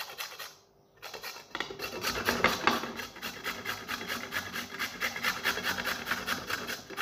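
Carrot being grated by hand on a round perforated stainless-steel grater: quick, repeated rasping strokes that pause briefly just before a second in and then run on steadily.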